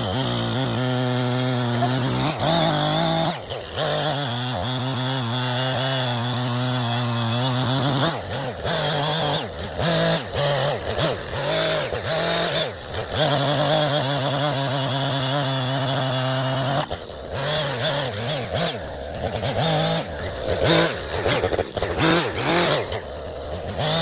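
Gas chainsaw running at high revs while cutting up a fallen tree. The engine note holds steady for long stretches and wavers as the chain bites into the wood, with a few brief drops in speed along the way.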